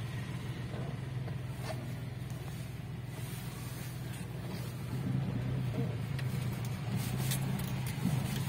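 Car engine running at low speed with a steady low hum and light road noise, heard from inside the cabin, with a few clicks near the end.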